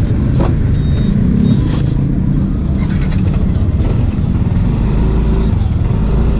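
Yamaha NMAX scooter's single-cylinder engine running as it rolls off at low speed, with a few short clicks early and the low rumble growing louder near the end.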